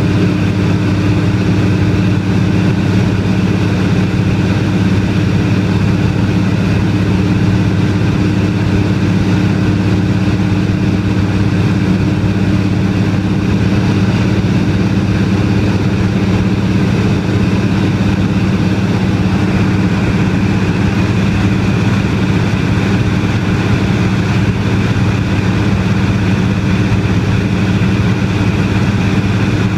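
De Havilland Canada DHC-2 Beaver floatplane's engine and propeller droning steadily in cruise, heard from inside the cabin.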